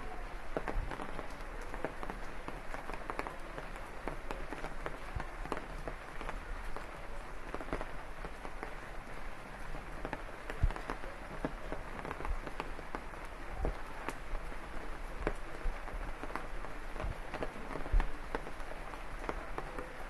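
Steady rain falling on leaves and ground: an even hiss full of small, close drop hits, with a few louder knocks around the middle and near the end.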